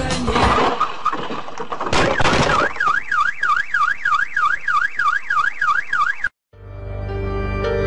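An electronic alarm siren wailing rapidly up and down, about four sweeps a second. Before it comes a loud noisy stretch with a sharp bang about two seconds in. The siren cuts off suddenly near the end, and music comes in.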